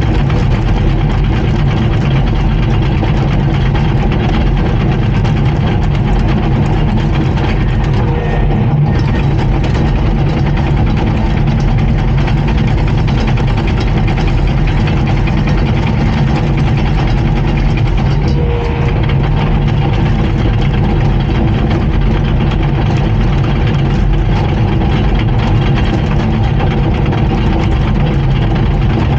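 Komatsu D39PX crawler dozer's diesel engine running steadily.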